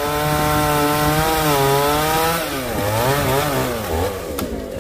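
Chainsaw running at high speed as it saws through a coconut trunk. Its pitch sags under load about three seconds in, picks up again, then drops off near the end, where a sharp knock is heard.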